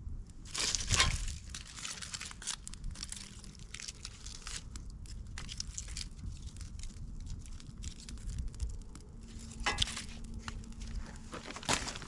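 Irregular crunching and crinkling of dry material being handled or stepped on, with louder crunches about a second in, near ten seconds and near the end.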